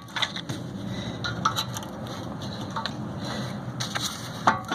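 A screwdriver prying a disc brake caliper off its bracket, with steady scraping and creaking of metal on metal broken by scattered clicks and knocks.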